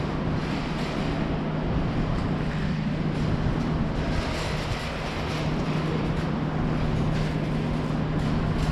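Steady mechanical rumble with one low, even hum running under it and no breaks.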